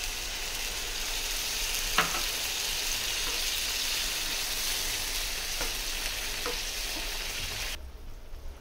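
Hot chicken masala sizzling in a frying pan as boiled water is poured in, with a metal slotted spatula stirring and clicking against the pan a few times. The sizzle cuts off abruptly near the end.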